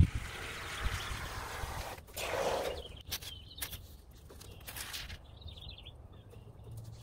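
Aerosol can of expanding polyurethane foam spraying through its straw nozzle: a steady hiss, then a louder sputtering burst about two seconds in as foam spits out, followed by a few sharp clicks and handling sounds from the can.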